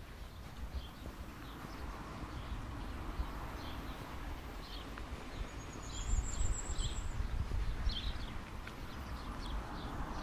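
Footsteps on an asphalt road at a steady walking pace, over a low rumble. About five and a half seconds in, a bird gives a brief high trill lasting over a second.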